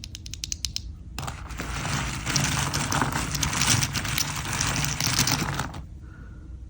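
Mechanical keyboard with Everglide Sea Salt tactile switches. First a quick run of evenly spaced keystrokes, about eight a second, that stops just under a second in. Then, from about a second in, a dense burst of fast typing in which the clacks run together for about four and a half seconds before it stops.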